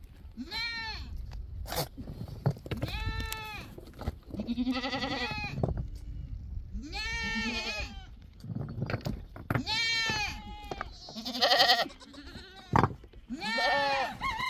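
Goat kids bleating repeatedly, about seven calls, each one rising and then falling in pitch. Two sharp knocks come between the calls.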